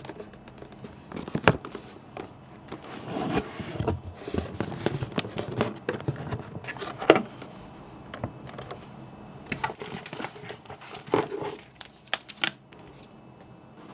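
Unboxing handling noise: cardboard packaging and wrapping rustling and crinkling, with scrapes and a few sharp knocks as the keyboard's box is opened and the contents are taken out.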